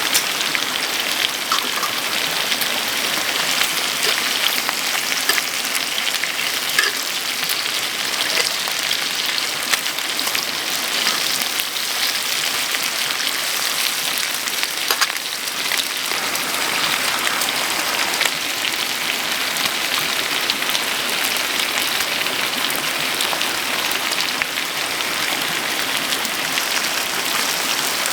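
Steady rain, a dense pattering of many small drops.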